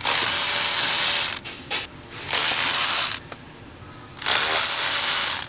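Power ratchet running in three bursts of about a second each, turning an E30 external Torx socket on the engine's fasteners.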